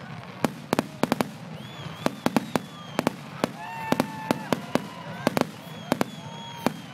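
Aerial fireworks bursting overhead: an irregular run of sharp bangs and crackles, about three a second.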